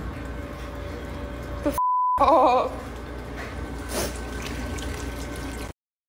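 Water dripping from a leaking ceiling into a bucket. About two seconds in, a censor bleep is followed by a brief, loud wavering voice. The sound cuts off suddenly near the end.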